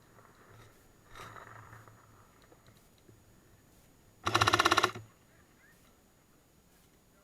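Airsoft M60 firing one short full-auto burst of rapid shots, about half a second long, a little past four seconds in.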